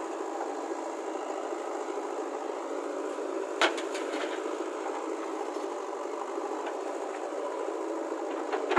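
Diesel engines of a JCB backhoe loader and a tractor running steadily at a loading site, with a sharp knock about three and a half seconds in and a few lighter clicks near the end.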